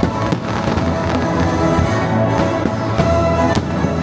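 Orchestral music with brass and strings, the fireworks show's soundtrack, with fireworks bursting over it in several sharp bangs.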